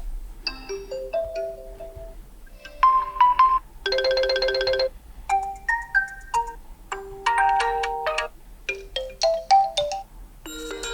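Oppo A54s smartphone ringtones playing: short, bright electronic melodies of chime-like notes in phrases about a second long, broken by brief pauses, with a quick repeated trill about four seconds in.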